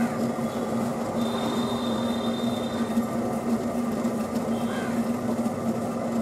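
Potter's wheel spinning, with a steady rumbling hum and a faint high whine that comes and goes, while wet clay is shaped on it.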